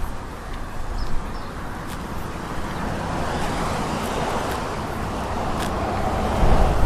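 Ocean waves washing onto the beach: a steady rush of surf that swells in the second half and is loudest near the end, with a low rumble underneath.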